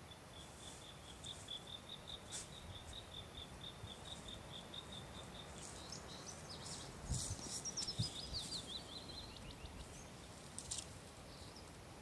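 Songbirds singing: a long, even trill of high repeated notes, about five a second, for the first half, then a quick run of falling notes. A few low thumps come in the middle.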